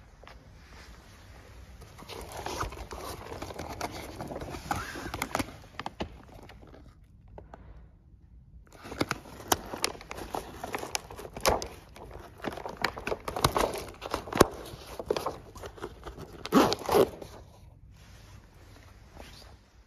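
Windsurf sail being handled: sail cloth crinkling and rustling while the zipper on the padded luff sleeve is worked open, with scraping and sharp clicks. It comes in two spells with a short lull between them.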